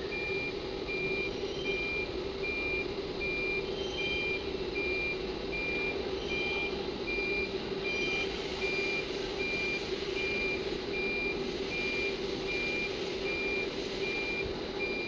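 A CNC router's warning beeper sounding a steady high beep about twice a second while an axis homes, over a steady machine hum.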